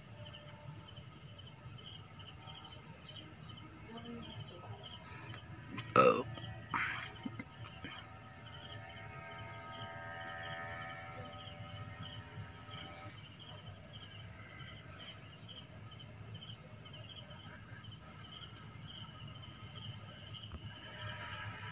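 Crickets and other night insects trilling steadily, with a sharp knock about six seconds in and a smaller one just after.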